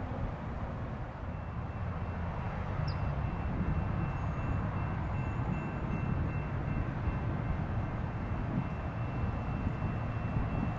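Low, steady rumble of an approaching train still out of sight, building slightly a few seconds in, with a faint steady high tone above it.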